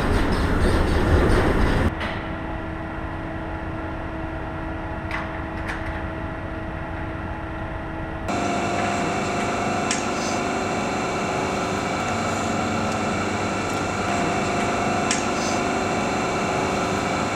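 The hydraulic shake table of a seismic test rig running, a loud low rumble that cuts off suddenly about two seconds in. After it comes a steady machinery hum with several steady tones, a little louder from about eight seconds in.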